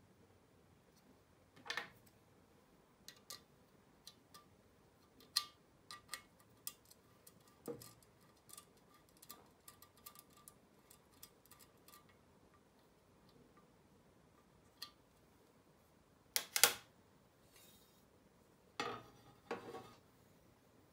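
Small aluminum parts and screws being handled and fastened by hand: scattered light metallic clicks and ticks, with louder clatters about two seconds in, about three-quarters of the way through and near the end.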